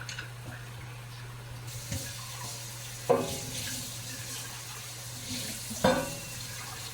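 Kitchen tap turned on about two seconds in, water running into the sink, with two ringing clanks of dishes about three and six seconds in. A steady low hum runs underneath.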